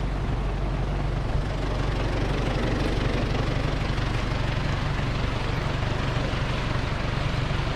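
Steady rush of a creek running high with floodwater, with a constant low hum underneath.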